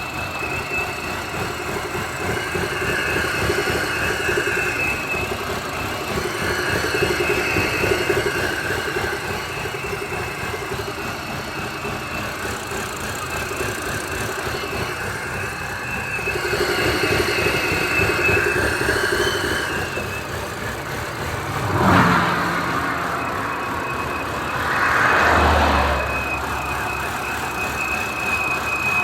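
BMW N52B30 straight-six engine running with a steady high-pitched whistle that wavers slightly. The whistle drops out for a few seconds about two-thirds of the way through, then returns; two short swells of louder sound come in that gap.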